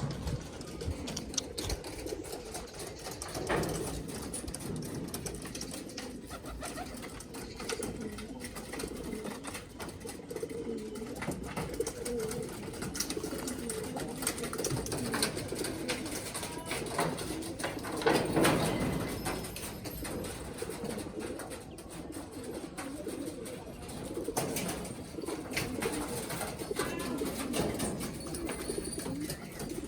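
Domestic pigeons cooing continuously, several birds overlapping in a low, wavering murmur. Scattered clicks are heard, and there is a louder burst a little past the middle.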